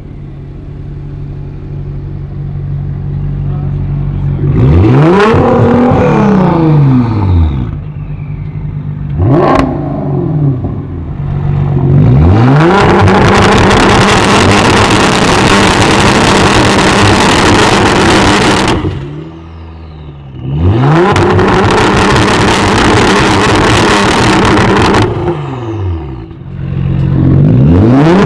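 Twin-turbo V6 of a tuned Nissan GT-R R35 with a full Boostlogic exhaust and upgraded turbochargers, revving while stationary. It idles at first, then gives a few quick blips that rise and fall, then two long, very loud holds at high revs with a short drop back between them, and one more blip near the end.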